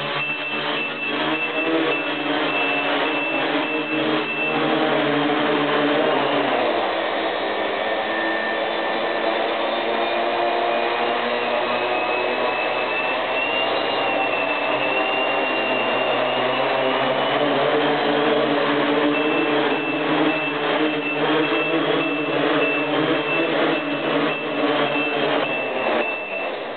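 Tricopter's three brushless motors and propellers whirring, their pitch shifting as the throttle changes, with a rapid high beeping running through the first few seconds and again through the second half. The motors wind down at the end.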